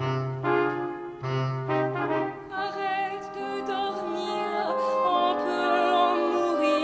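Big-band brass section playing sustained chords in short phrases. About two and a half seconds in, the music softens into held accompaniment with a wavering melody line on top.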